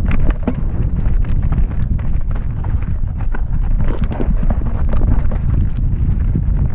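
Mountain bike descending a rocky gravel trail: tyres crunching over stones and the bike rattling with frequent quick clicks and knocks, over a steady low wind rumble on the microphone.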